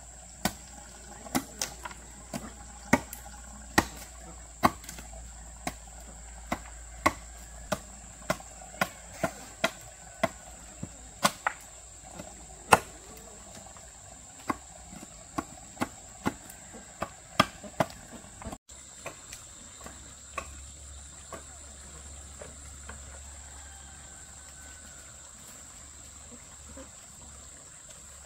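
Irregular sharp blows of a hand tool, about one to two a second, over a steady high chirring of insects. About two-thirds of the way through the blows stop abruptly, and only the insects and a few faint knocks remain.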